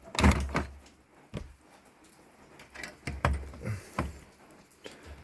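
Knocks and rubbing of fuel hoses and the fuel transfer pump assembly being worked back through the gas tank's access opening, with a sharp knock about a second and a half in.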